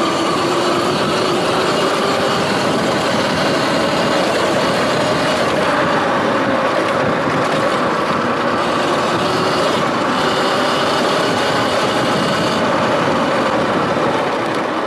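Sur-Ron Light Bee X electric dirt bike being ridden: the electric motor and drivetrain whine, shifting in pitch as the speed changes, over a steady rushing noise.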